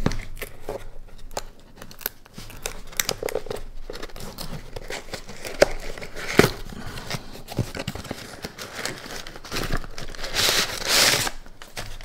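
Paper and cardboard being torn and handled: a cardboard mailer torn open and a package wrapped in crumpled brown kraft paper pulled out, with tearing, crinkling and rustling broken by small taps. A longer, louder rustle of the paper comes near the end.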